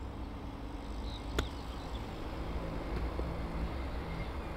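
A golf club striking the ball out of a sand bunker: one short, sharp strike about a second and a half in, over a steady low hum.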